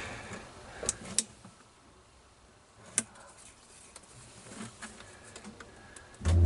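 Small clicks and taps of wires and a small connector being handled by hand, with a few sharp clicks about one and three seconds in and fainter ticking later, then a dull low thump right at the end.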